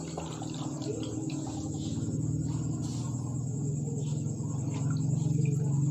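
Liquid being poured through a strainer into a bottle, over a steady low hum.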